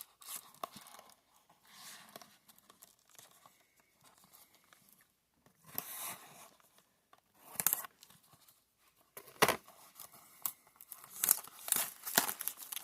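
Foil trading-card booster packs crinkling and rustling as they are shuffled by hand, in irregular swishes and clicks that get busier and louder in the last few seconds.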